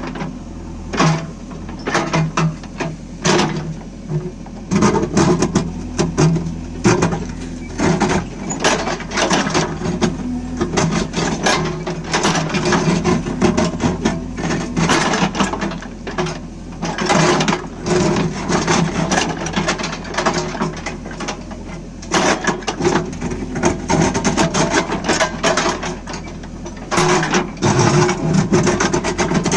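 JCB 3DX backhoe loader's diesel engine running steadily under load while digging, with frequent sharp knocks, clanks and scrapes from the bucket and arm working the ground.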